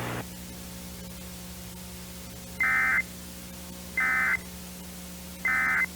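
Emergency Alert System end-of-message signal: three short bursts of screeching digital data tones, each under half a second and about a second and a half apart. A faint steady hum runs underneath.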